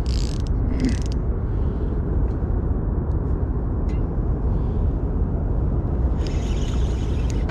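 Spinning reel being wound during a fight with a hooked springer, with faint mechanical ticks from the reel, under a steady low rumble. A brief hiss comes near the end.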